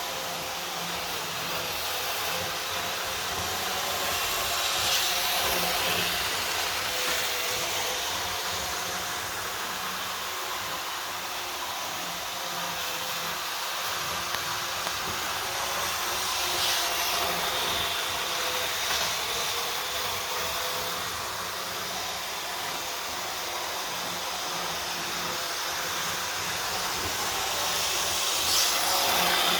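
Tri-ang Blue Pullman OO-gauge model train running round a track: a steady mechanical running hiss and rumble that swells briefly three times, about twelve seconds apart, as the train passes close by.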